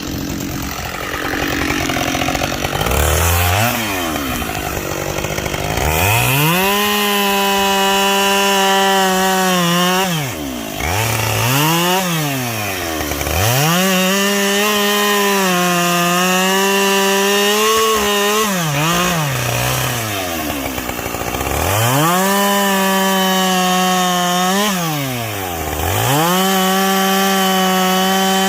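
Gas chainsaw bucking firewood logs. The engine revs up to full throttle and holds there through each cut, then drops back briefly between cuts; this happens about four times.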